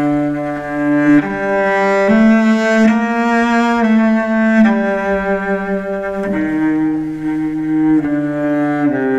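Solo cello played with the bow: slow, sustained notes, each held for one to two seconds before moving to the next.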